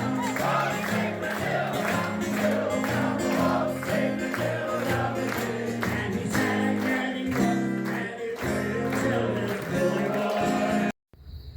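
Background music with singing and a steady beat, cutting off abruptly about eleven seconds in.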